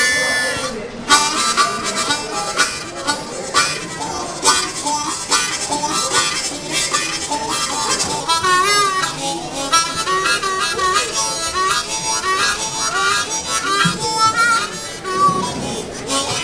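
Background music: a harmonica-led tune over a steady beat.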